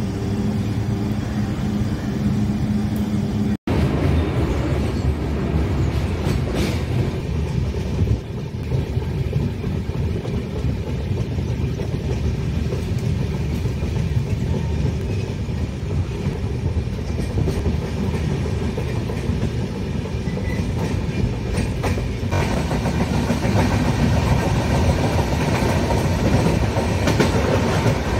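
Passenger train running on the rails: a steady rumble that breaks off for an instant a few seconds in.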